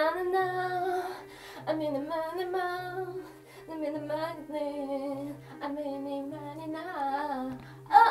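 A woman singing a melody with long held, sliding notes and no clear words, over background music with a bass line that steps about once a second.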